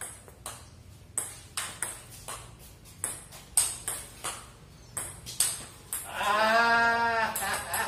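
Table tennis ball clicking in quick, irregular taps. About six seconds in, a loud drawn-out call rises over the taps for about a second and a half.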